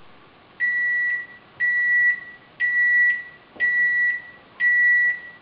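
Timer beeping, five even high-pitched beeps about half a second long, one a second, signalling that the 10-minute resting time is up.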